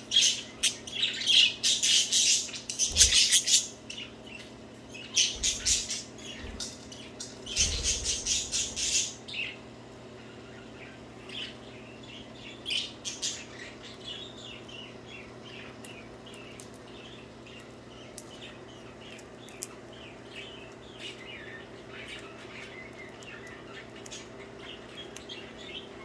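Budgerigars chattering and warbling. Loud, harsh bursts of calling fill the first nine seconds or so, then the birds settle into a softer, continuous chirping warble.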